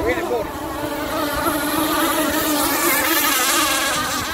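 Two-stroke Zenoah gas engines of radio-controlled racing catamarans buzzing at high revs, their pitch wavering as the boats run across the water. The sound grows a little louder toward the middle.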